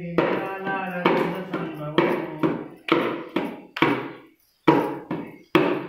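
A small hand drum struck in a steady beat, about two strokes a second, each stroke ringing and fading, with a short break just past four seconds; a voice chants or sings along.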